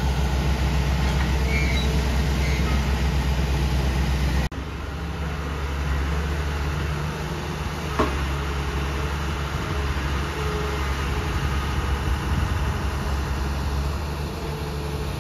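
Engine of construction machinery at a concrete pour running steadily. The low hum shifts in character about four and a half seconds in, and a single short knock sounds about eight seconds in.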